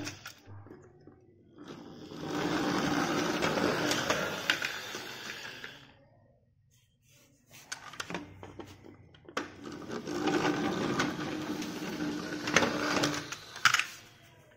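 Plastic toy cars rolling down a plywood board, a rattling rumble of their wheels heard twice, each run lasting about four seconds, with knocks as the cars bump along.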